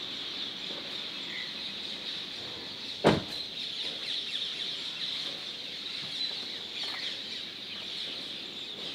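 Morning bird chorus: many birds chirping and calling over a steady high-pitched din. One loud thump about three seconds in.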